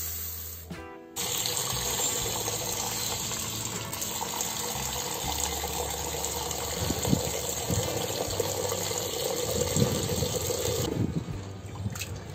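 Tap water running steadily into a pot of toor dal (split pigeon peas) to wash them. About eleven seconds in the flow stops, and softer sloshing follows as a hand rubs the lentils in the water.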